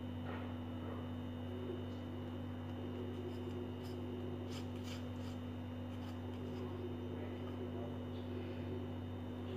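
A spoon scraping gel out of a fresh aloe vera leaf: faint, soft scraping with a few light ticks, over a steady low hum.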